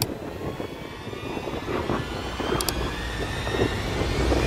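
A motor's steady hum with a faint rising whine, over wind and rushing water. Two sharp clicks, one at the start and one about two and a half seconds in, match the on-screen like and subscribe animations.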